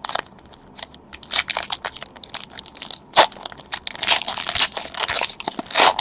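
Crinkling and tearing of trading-card pack wrappers as packs are handled and opened: irregular crackling with a few sharper rips, one near the start, one about three seconds in and one near the end.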